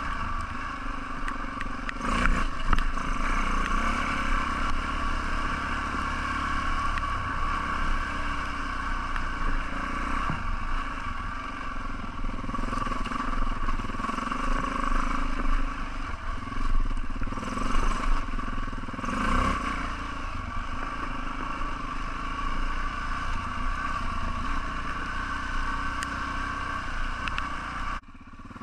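Single-cylinder four-stroke trail bike engine running as the bike is ridden, its note rising and falling with the throttle. Just before the end the sound drops away suddenly.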